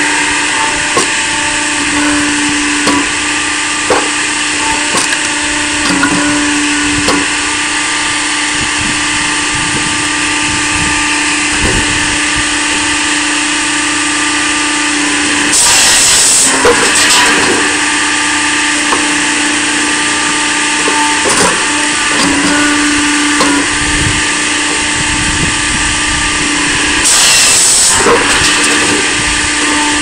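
Firewood processor running steadily with a constant hum, its saw cutting through a log twice, each cut a louder rush of noise lasting about a second and a half, one about halfway through and one near the end. Scattered knocks of wood on the machine come in between.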